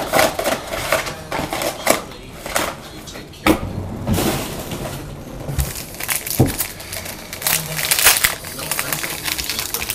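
Trading card box being handled and opened: irregular rustling, crinkling and clicking of packaging, with dull knocks about three and a half and six and a half seconds in and the busiest crinkling near the end.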